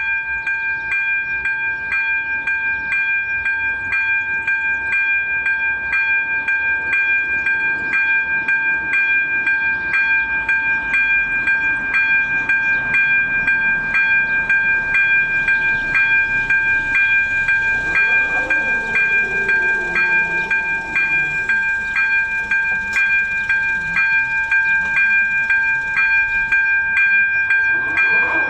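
ZV02 electronic level-crossing bell ringing continuously, a steady bright tone struck about twice a second: the crossing's warning as the red lights flash for an approaching train.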